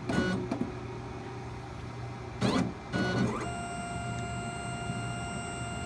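40-watt laser engraver's stepper motors moving the head in short jogs: brief whirring sweeps that rise and fall, near the start and about two and a half and three seconds in. Under them runs a steady high-pitched electrical whine and low hum from the machine.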